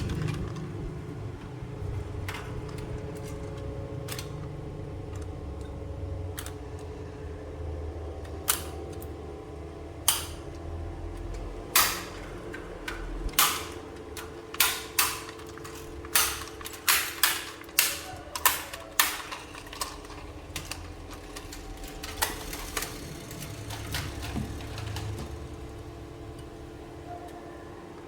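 Plastic toy pieces being handled: a run of sharp clicks and taps, thickest around the middle, over a steady low hum.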